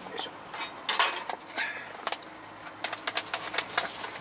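Light clicks and clinks of small metal cookware, a stainless bowl and an aluminium mess-tin lid, being handled on a camp table, with the sharpest knocks about a second in and a quick run of ticks near the end.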